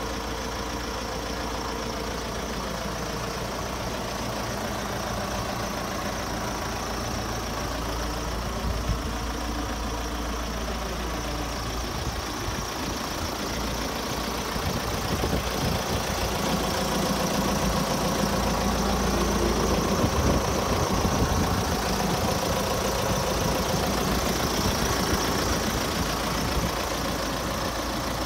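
John Deere 6430 tractor's four-cylinder diesel engine idling steadily, growing louder about halfway through.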